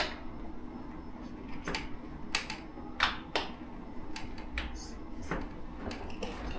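A latch being worked by hand: a string of sharp clicks and knocks at uneven intervals, roughly one every half second to second, as someone tries to lock it. The latch doesn't lock.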